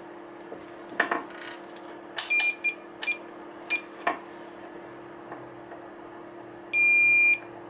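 Digital multimeter's beeper on a continuity test: a few clicks and short chirps, then one steady beep of about half a second near the end as the probes bridge the fuse, showing the fuse is not blown.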